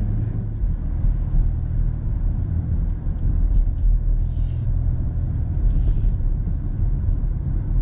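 Steady low rumble of road and engine noise inside the cabin of a BMW X5 30d, whose 3.0-litre straight-six diesel is pulling it along at city speed. Two soft, brief hisses come through about four and six seconds in.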